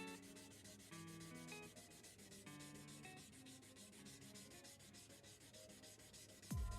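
Quiet background music: short melodic notes over a fast, even ticking beat, with a deep falling sweep near the end as the music gets louder.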